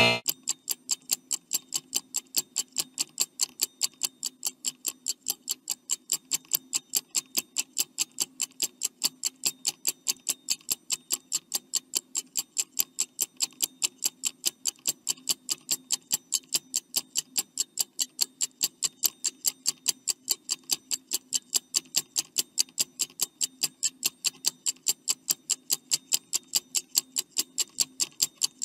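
Stopwatch ticking sound effect, an even run of sharp ticks at about four a second, counting down the time allowed to answer a quiz question.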